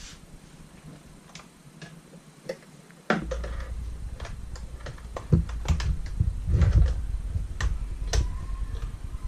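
Scattered small clicks and taps of hands connecting the wiring inside a Rainbow vacuum cleaner. About three seconds in, a low handling rumble comes in with them.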